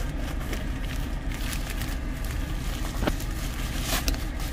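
Scissors cutting through a plastic courier mailer, then plastic crinkling as the box is pulled out, with the loudest crinkle near the end, over a steady low rumble.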